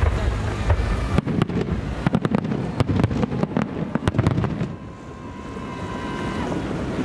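Aerial fireworks shells bursting in a rapid series of sharp bangs for about three and a half seconds, with wind on the microphone before and after.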